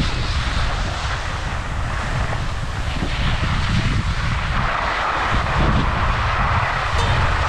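Skis sliding and scraping over snow while wind buffets the microphone of a camera carried by a moving skier: a steady rush with a deep rumble, the scraping hiss growing brighter a little past halfway.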